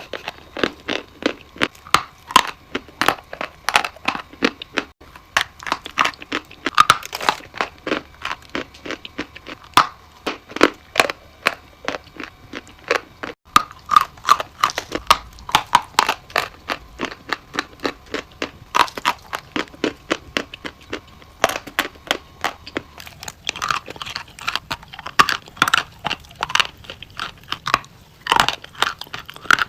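Close-up crunching and chewing of chalk: a steady run of crisp, crackling bites and grinding.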